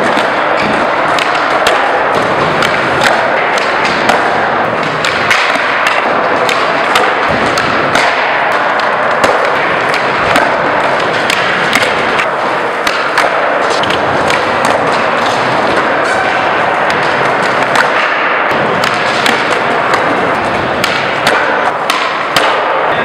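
Skateboards on a concrete floor: wheels rolling, tails popping and boards slapping down in many sharp knocks, over a steady background din of the skatepark.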